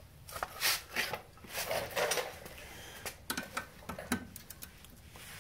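Metal wrench clinking and scraping on a 10 mm bolt of the parking brake cable bracket as it is worked loose: a run of short clicks and scrapes, then a few sharp clicks.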